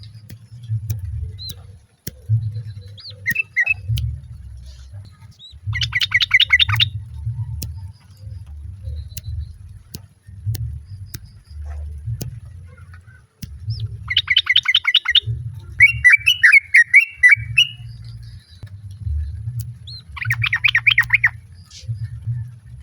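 Yellow-vented bulbuls calling: three quick chattering rattles of about a second each, roughly six, fourteen and twenty seconds in, with a bubbly warbled phrase between the second and third. A low rumble runs underneath.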